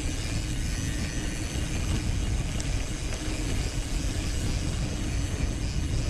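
Wind rushing over an action camera's microphone, with a mountain bike's tyres rumbling and its frame and parts rattling as it rolls down a rough forest trail; a steady noisy rush, heaviest in the low end.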